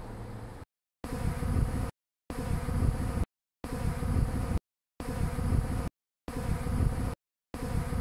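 Bees buzzing in six bursts of about a second each, each cut off abruptly by about a third of a second of dead silence, like a looped buzzing sound effect.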